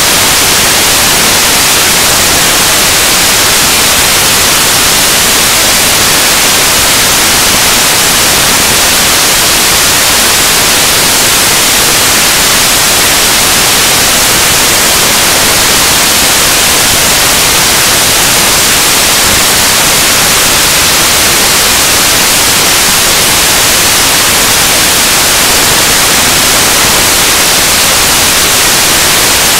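Loud, steady hiss of static, even and unbroken, with no speech coming through: a fault in the audio track, where the recorded sound has been replaced by noise.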